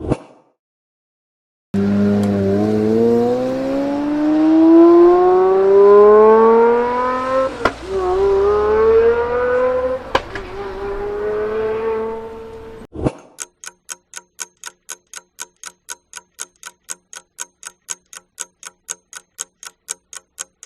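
A car engine accelerating hard, its pitch climbing steadily with two upshifts, each a sudden drop and renewed climb, about eight and ten seconds in. The engine cuts off about thirteen seconds in and a clock-like countdown ticking takes over, about four ticks a second.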